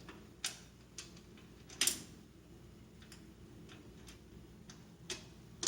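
Faint, irregular light clicks and taps of small metal parts being handled while a range's control panel is taken apart, the loudest almost two seconds in.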